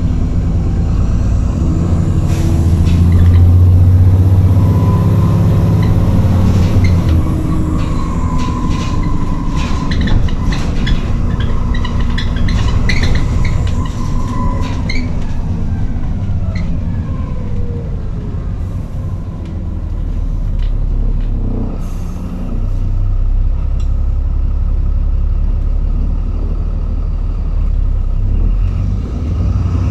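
Alexander Dennis Trident 2 Enviro400 double-decker bus on the move, heard from inside the passenger saloon: a diesel engine and drivetrain rumble, loudest in the first few seconds, with a whine that holds and then falls away around the middle. Fittings rattle through the first half, and a lower, steadier rumble follows.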